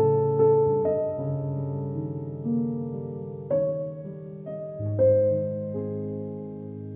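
Slow, gentle solo piano background music, sustained chords with single notes struck every second or few and left to ring and fade.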